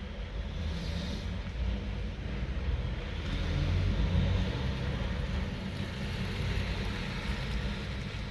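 Low, steady rumble of a motor vehicle, swelling a little about three to four seconds in.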